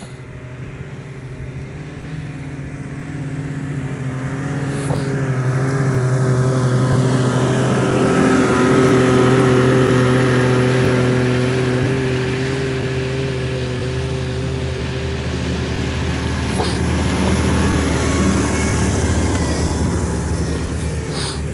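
An engine running steadily, growing louder to a peak about nine seconds in and then easing off.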